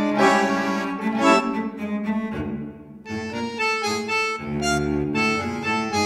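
Background music: sustained instrument notes over a steady low drone, briefly dropping quieter about halfway through.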